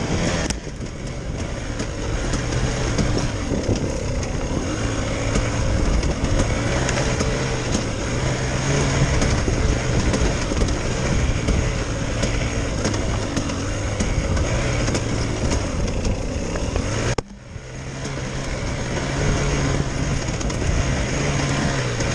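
Enduro motorcycle engine running at low, fairly steady throttle along a forest trail, with a rushing haze of wind and trail noise over it. About seventeen seconds in the sound cuts off suddenly and builds back up over a few seconds.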